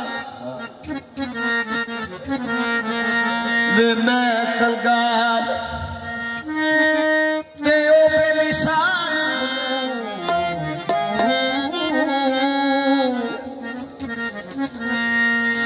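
Qawwali accompaniment: two harmoniums playing a sustained melody with tabla, between sung lines. A voice slides in and out wordlessly in places.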